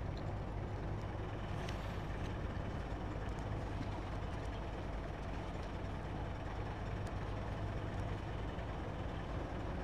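Car ferry's engine running with a steady low drone.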